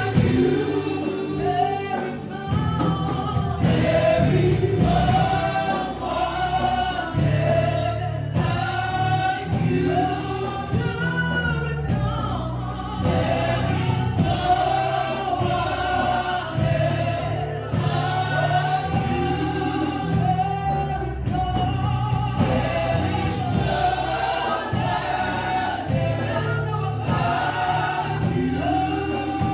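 Gospel worship music: a choir singing together over a steady bass and keyboard accompaniment.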